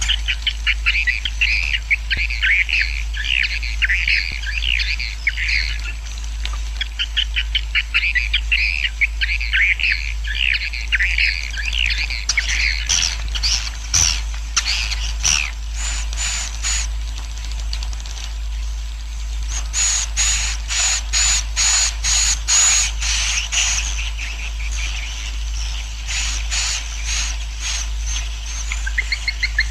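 Edible-nest swiftlet colony roosting call ('suara inap'), a recording played to lure swiftlets to settle: dense, rapid twittering chirps, then in the second half runs of higher, evenly spaced chirps at about three a second. A steady low hum runs underneath.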